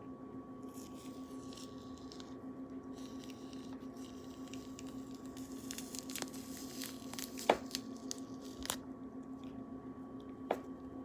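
Wet squishing and tearing of grapefruit peel and segment membrane being pulled apart by hand, with three sharp clicks or snaps in the second half. A steady low hum runs underneath.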